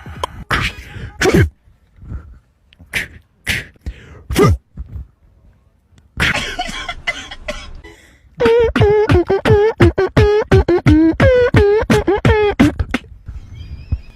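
Comedy fart sound effects: several short blasts with falling pitch, a hissy stretch, then a long rapid string of buzzy pitched farts, about three a second, ending abruptly.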